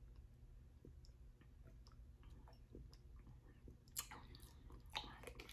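Near silence with faint mouth sounds of a person drinking and swallowing from a plastic bottle, and a couple of soft clicks about four and five seconds in.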